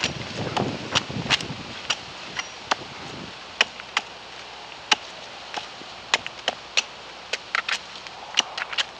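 Hand tool chipping and scraping dead, sunburned bark off an avocado tree trunk: irregular sharp taps on wood, sometimes several in quick succession, with rough scraping in the first few seconds.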